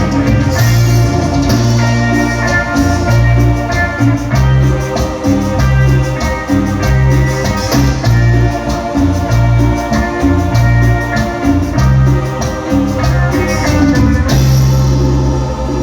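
Live band music with no vocals: bass, drums and a melody line over a steady Latin dance beat. About 14 seconds in, the beat gives way to held notes.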